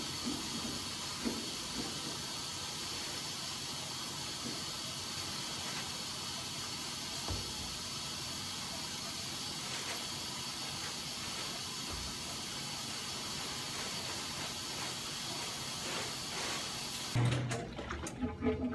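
Coin-operated top-loading washing machine filling with water: a steady hiss that cuts off sharply about seventeen seconds in, followed by a few clunks as the lid and laundry are handled.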